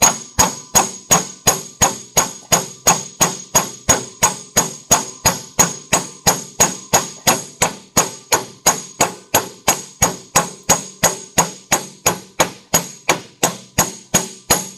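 Hammer pounding on a microwave oven transformer clamped in a vise, steady blows about three to four a second, each with a short metallic ring, to knock pieces out of the transformer.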